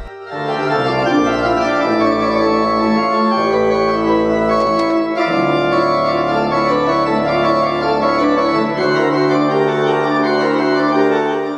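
Pipe organ playing a passage of sustained chords that move from one chord to the next every second or so, with low bass notes underneath.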